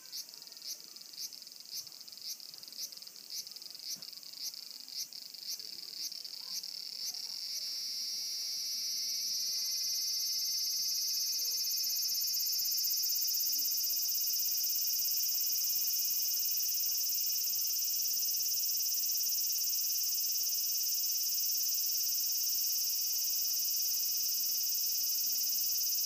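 Cicada singing: a string of short high pulses, about three a second, that merge into one continuous high-pitched buzz from about eight seconds in, which grows louder and then holds steady.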